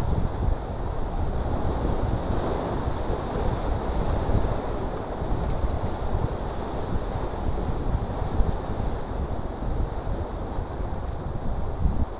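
Wind buffeting the microphone over the rush of waves breaking on rocky shore, with a steady high-pitched hiss above it.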